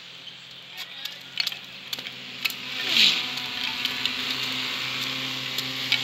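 Animated-film sound effects of a busy insect city: scattered clicks and ticks over a hiss that swells about three seconds in, with a falling sweep, then a steady low hum.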